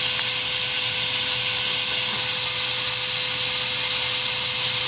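Wet vacuum running steadily, a rushing hiss with a constant whine, pushing air through the car's exhaust so that the leak shows as bubbles in soapy spray.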